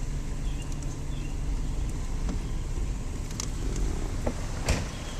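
Steady low outdoor rumble with a few scattered clicks; a single sharp click about three-quarters of a second before the end is the loudest sound.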